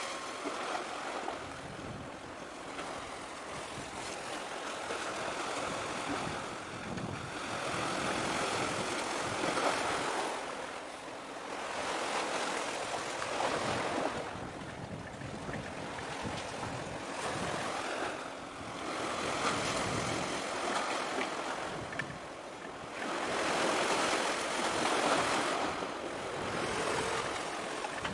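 Waves washing against the shore, a hissing wash that swells and eases every few seconds, with some wind on the microphone.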